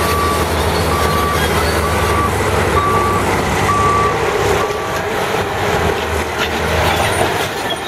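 Heavy earthmoving machinery's diesel engine running steadily, with a backup alarm beeping about once a second, six times, and stopping about five seconds in.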